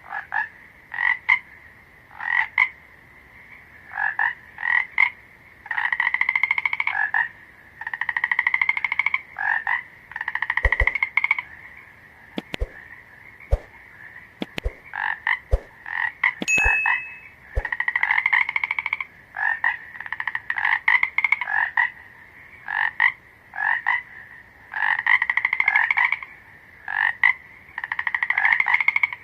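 Frogs croaking: short calls alternating with longer pulsed trills that rise slightly in pitch, one after another every second or two. A few sharp clicks fall around the middle.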